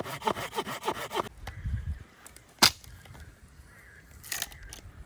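Hand saw cutting through wood in quick, even strokes that stop about a second in. A loud, sharp crack follows, and a smaller one near the end.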